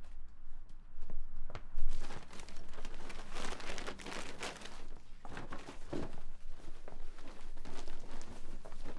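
Rustling and crinkling of tote bags and clothing being handled, with scattered soft knocks. The rustling is busiest about halfway through.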